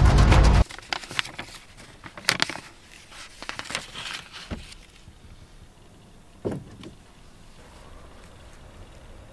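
A loud low sound cuts off abruptly under a second in. Then come faint scattered clicks, ticks and rustles of hands handling a small object, with one slightly louder tap about six seconds in.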